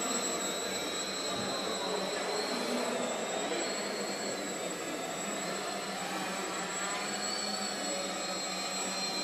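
Electric tricopter's motors and propellers running steadily in flight, a high whine that wavers up and down in pitch with the throttle over a constant rushing hiss.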